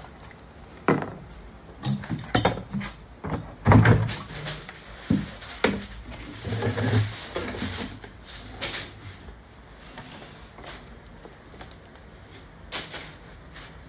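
Irregular knocks and clicks, clustered in the first half with the loudest about four seconds in, then sparser.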